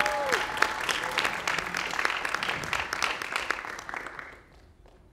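Audience applauding after a speech, the clapping dying away about four seconds in.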